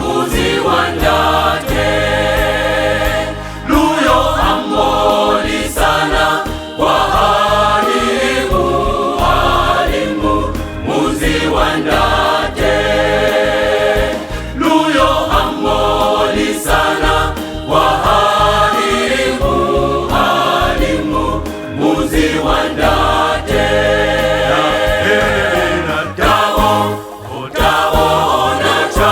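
Choir singing a gospel song, several voices in harmony, with a sustained low bass line underneath.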